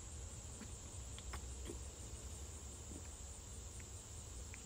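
Faint, steady, high-pitched insect chorus over a low rumble, with a few faint clicks.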